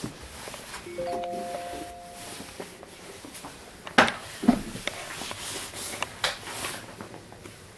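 Indoor handling noises: a short squeak made of a few steady tones about a second in, then several sharp clicks and knocks from about four seconds on.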